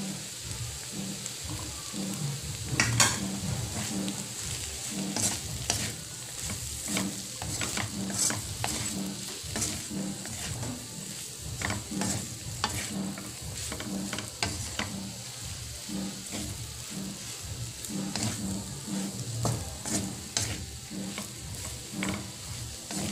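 A wooden spatula stirring and scraping flaked milkfish with chopped onions around a metal wok in repeated strokes, over a steady sizzle of frying. One sharper knock of the spatula against the pan comes about three seconds in.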